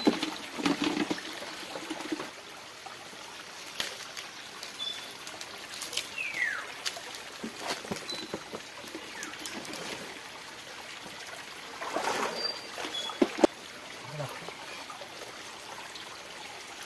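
Shallow creek water trickling and sloshing as people wade through it and move a plastic container and hand net in the water, with scattered small splashes and a sharp knock about three-quarters of the way through.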